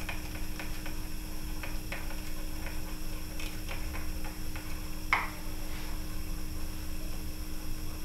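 Spoon stirring dry yeast and water in a small bowl, clicking lightly and irregularly against the bowl, with one louder click about five seconds in, over a steady low hum.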